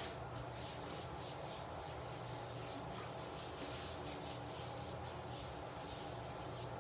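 Hands rubbing lotion into the skin of the legs: faint, repeated soft rubbing strokes.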